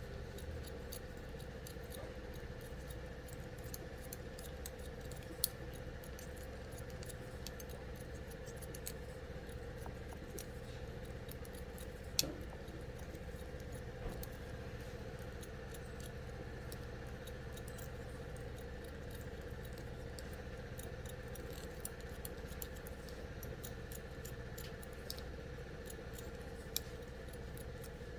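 Hair-cutting scissors clicking and snipping now and then, with a few sharper clicks, over a steady low hum.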